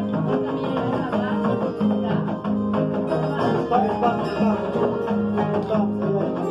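Andean harp played by hand: a plucked melody over a repeating bass line, running steadily.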